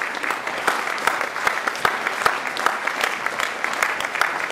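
Audience applauding: many hands clapping together, holding a steady level.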